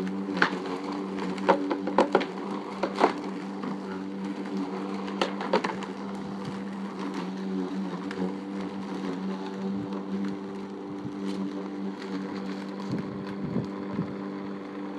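Lawn mower engine running steadily, with a series of sharp clicks and knocks, most of them in the first six seconds.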